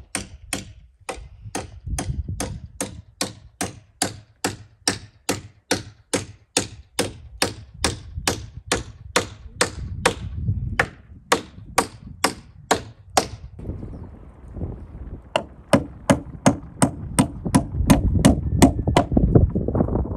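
A hammer striking repeatedly in a steady rhythm, about three blows a second, as in nailing during roof work. The blows break off for about two seconds, then resume at the same pace.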